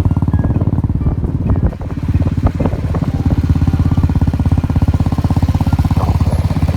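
Engine of a moving road vehicle running steadily with a fast, even low pulse, briefly dropping in level about two seconds in.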